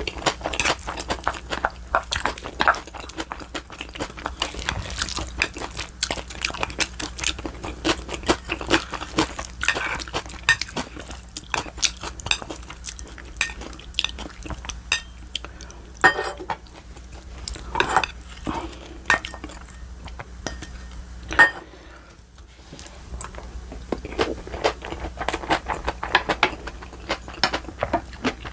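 Close-miked eating: utensils clicking and clinking against dishes, with chewing between. The clicks come thick and irregular, and one sharper clink about two-thirds of the way through is followed by a short lull.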